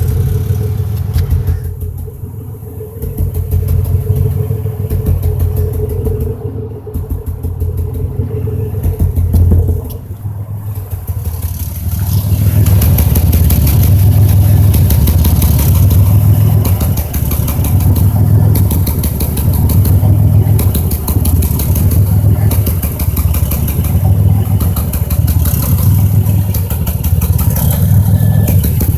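2005 Chevy Impala's 3800 V6 engine running with a rhythmic stutter, a surge every second or two, louder from about twelve seconds in. It is a misfire that has set a cylinder 5 misfire code (P0305), and a new plug, wire and injector on that cylinder have not cured it.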